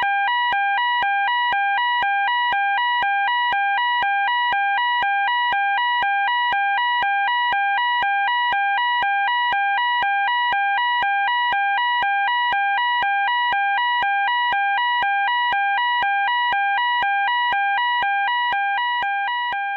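Electronic fire alarm sounding a loud two-tone warble, switching rapidly and evenly back and forth between a lower and a higher pitch; it begins to fade near the end.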